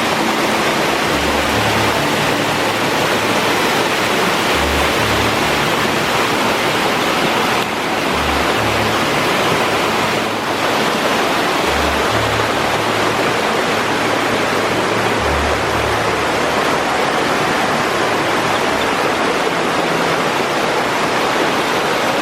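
Waterfall: water pouring down in a steady, loud rush.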